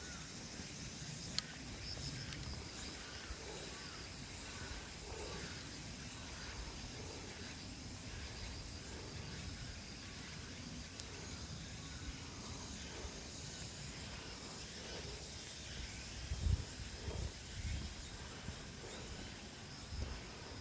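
Outdoor ambience: a steady high hiss, with a few low thumps about three-quarters of the way in.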